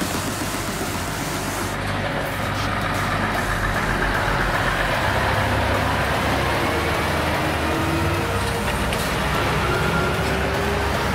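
Scania R580 V8 truck with an open exhaust pipe, its engine running as it pulls away and drives past.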